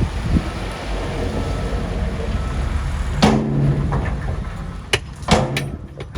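Heavy machinery engine running with a steady low rumble. About three seconds in and again near the end, a sudden short pitched sound cuts in over it.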